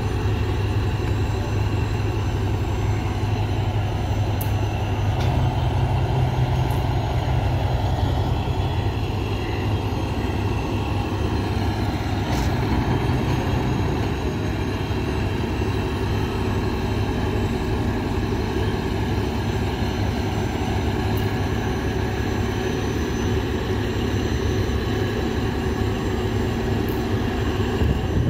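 Steady low rumble of a heavy vehicle engine running, with a few faint clicks.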